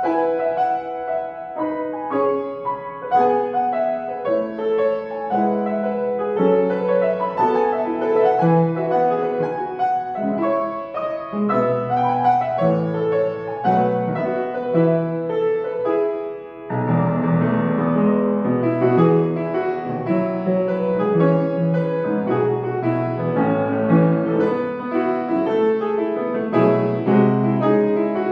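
Piano played solo in a lively arrangement with many quick notes; about sixteen seconds in it briefly drops away, then comes back fuller and brighter.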